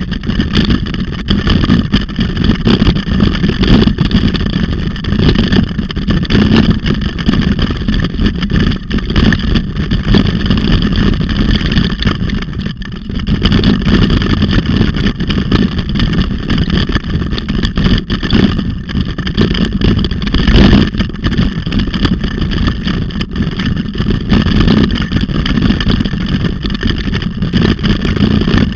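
Loud, steady rumble of wind and road noise on a handlebar-mounted camera as a dog-pulled bike rolls over a rough dirt road.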